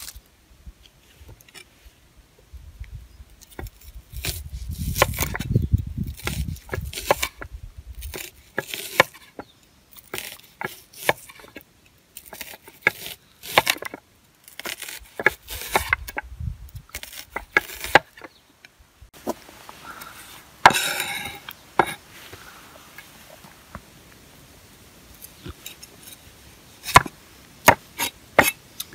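Large knife slicing a red onion on a wooden cutting board: a long run of sharp knocks of the blade on the board with short pauses, and a brief crackling rustle about two-thirds of the way through. A few more sharp knocks near the end as the blade goes into a tomato.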